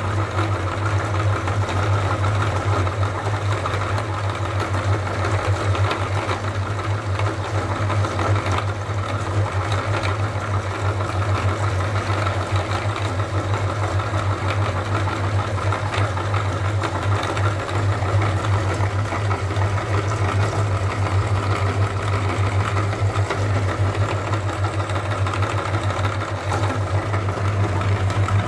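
Motor-driven meat grinder running steadily with a low hum while grinding halved limes.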